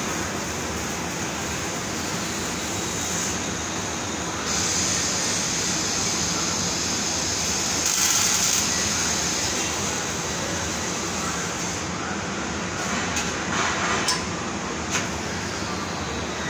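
An arc welder's torch hissing and crackling for several seconds in the middle, over the steady hum of shop machinery. A few sharp knocks come near the end.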